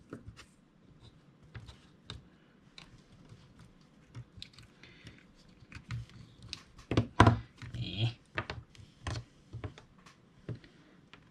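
Small plastic and metal parts of a partly disassembled hot glue gun being handled on a desk: scattered light clicks and knocks, with a louder cluster of knocks about seven seconds in.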